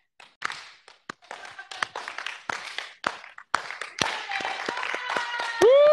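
Slow clap: single hand claps spaced about half a second apart, quickening and filling out into denser applause, then a loud, long 'woo!' shout near the end.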